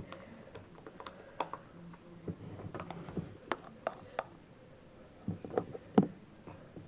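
Scattered light clicks and taps of a container and utensil being handled, about a dozen spread unevenly, the firmest ones in the second half.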